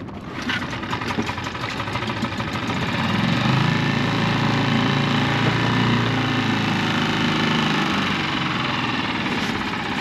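Brand-new dinghy outboard motor running at idle just after its first-ever start, growing louder and steadier about three seconds in. This is the start of its break-in run at idle.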